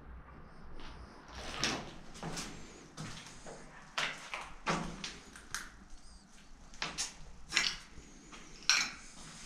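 Footsteps crunching on rubble and broken plaster on a concrete floor, irregular steps roughly one a second, the loudest near the end.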